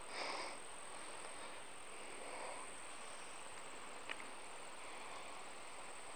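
Insects trilling steadily and high-pitched in a grassy meadow over a faint hiss of open-air background, with a single light tick about four seconds in.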